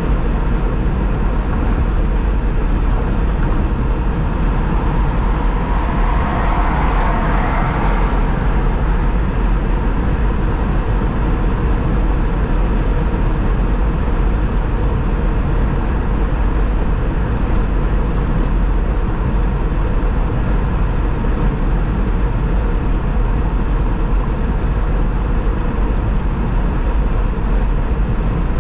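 Steady road and tyre noise of a car travelling at highway speed, with a heavy low rumble and a faint steady hum. About six seconds in, a brighter swell of noise rises and fades over about two seconds.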